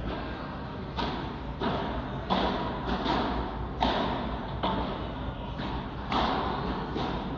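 Padel rally: the ball is struck back and forth with solid padel rackets and bounces on the court. From about a second in there is a run of about nine sharp hits, one every half second to a second, each echoing in the large indoor hall.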